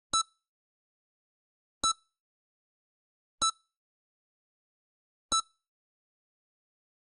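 EKG heart monitor beeping: four short, identical beeps at slightly uneven intervals of about one and a half to two seconds, with silence between them.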